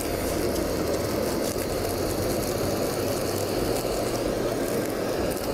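Handheld gas kitchen torch burning with a steady, continuous rushing noise as its flame sears sushi.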